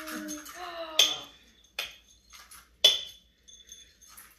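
Sharp clinks of dishes or cutlery on a kitchen counter, three strikes with a brief high ring after the loudest, typical of a meal being readied in a bowl. A short steady hum-like tone fades out at the very start.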